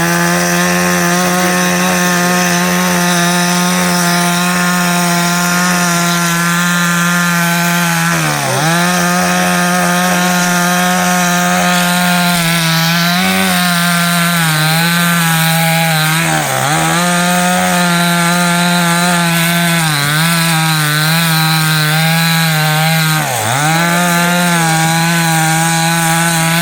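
Two-stroke chainsaw running at high revs, cutting into the wood of an old ber (jujube) tree. The engine note holds steady, dips briefly about four times and climbs straight back.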